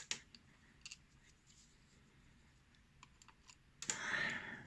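Light scattered clicks and taps of small metal lock pins being handled, with a short rustling scrape near the end.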